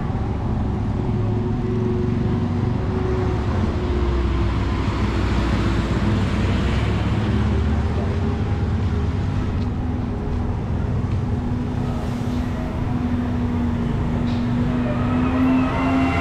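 Busy street traffic: motor vehicles running and passing, with a steady low engine rumble and hum.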